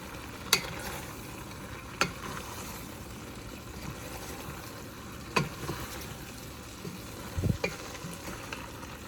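A utensil stirring chicken, vegetables and pasta together in a hot pan, with a low steady sizzle and a few sharp knocks of the utensil against the pan.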